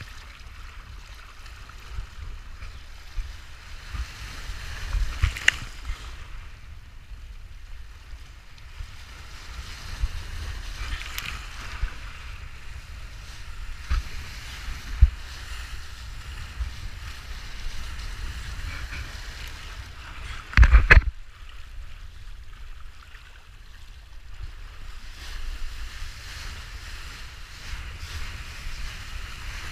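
Kiteboard planing over choppy water: a steady rush of water and spray hiss over low wind rumble on the camera microphone, with a few sharp thumps as the board hits chop, the loudest a double thump about two-thirds of the way through.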